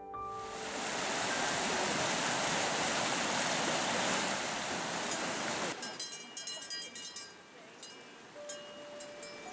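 Rushing mountain stream, a steady loud whitewater rush over rocks. About halfway it cuts to a quieter stretch of scattered clinks with short ringing tones.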